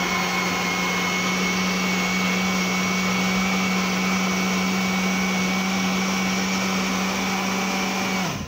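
Electric blender running at a steady speed, blending chunks of papaya, pineapple and apple with water into a thick juice. The motor cuts off near the end.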